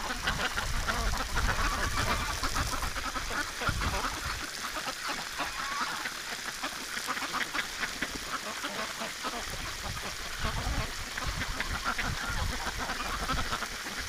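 A flock of Pekin and other domestic ducks quacking over and over as they play in the spray of a garden hose, with the steady hiss and spatter of the hose water underneath.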